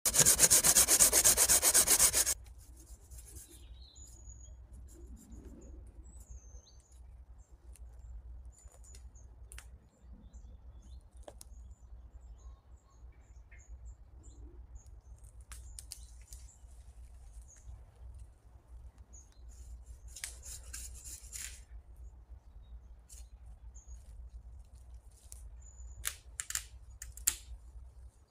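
A loud, fast rasping scrape for about two seconds at the start, then a steady low rumble with faint bird chirps and a few scattered clicks and rustles.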